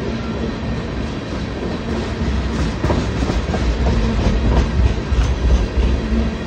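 Empty oil tank cars of a freight train rolling past, steel wheels clacking over the rail joints above a low rumble. The clacks grow louder and more frequent from about two and a half seconds in.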